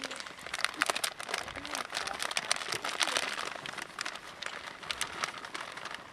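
Plastic bag of shredded cheese crinkling as it is tipped and shaken out into a pot: a dense run of irregular crackles.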